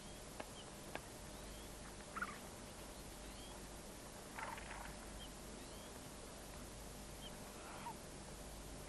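Faint, scattered wild animal calls: a few short high chirps and brief rougher chattering calls, with two light ticks in the first second, over a steady hiss.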